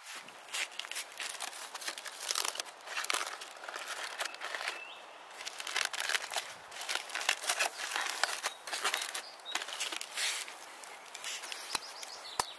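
Irregular crinkling and rustling in short, uneven bursts.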